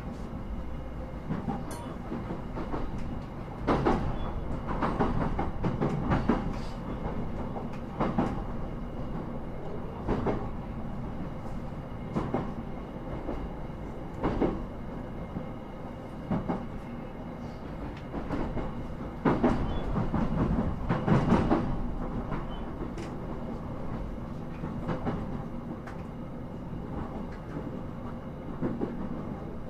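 Inside an electric commuter train on the move: a steady rumble of wheels on rail, with irregular clacks of the wheels over rail joints or points, heaviest about two-thirds of the way through.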